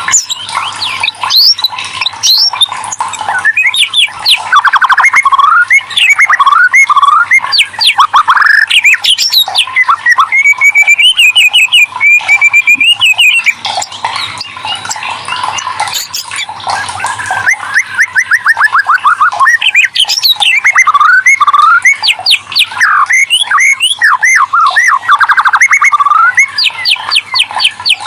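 White-rumped shama (murai batu) singing on and on: a fast, varied run of sweeping whistles, rapid trills and harsh chattering notes, with one longer held warbling note about eleven seconds in.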